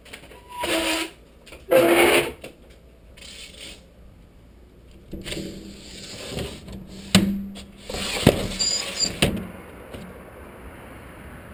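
Handling noise on a helmet-mounted action camera: two loud rubbing bursts near the start, then scraping with three sharp knocks in the second half, settling into a steady faint hiss near the end.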